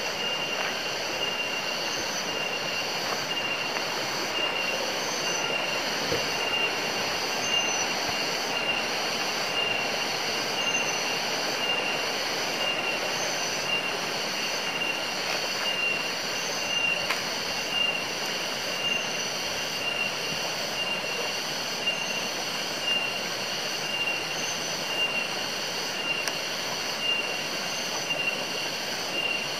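A steady, high-pitched chorus of forest insects, swelling about every two seconds, over an even background rush that fits the nearby stream.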